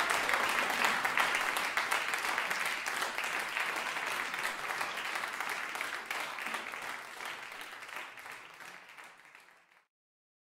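Audience applauding, a dense patter of many hands clapping that fades steadily and dies away about ten seconds in.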